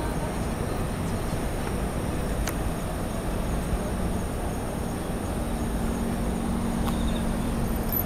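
Autumn insects chirring in steady, continuous high tones, over a steady low rumble. A low hum joins about five seconds in.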